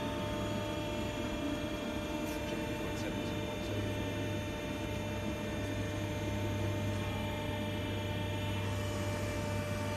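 Steady low hum of a hydraulic press brake's pump motor running, with a few faint higher tones held steady over it.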